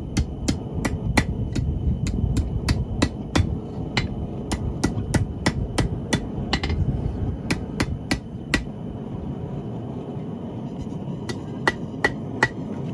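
Hand hammer striking a 5/16-inch steel rod on an anvil, about three sharp blows a second, straightening out a bend that developed next to the rod's right-angle bend. The blows stop for about three seconds, then a few more strikes come near the end.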